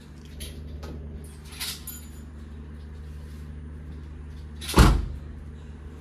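A Maruti Suzuki Wagon R's rear hatch is slammed shut about five seconds in, with one loud thud.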